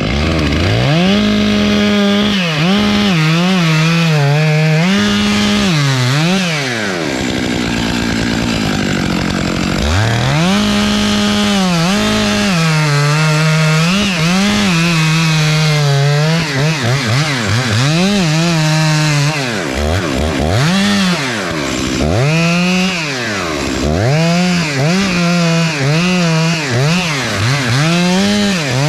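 Two-stroke chainsaw running, revved up and eased back off again and again, with a lower stretch between revs and a run of quick rev cycles about once a second near the end.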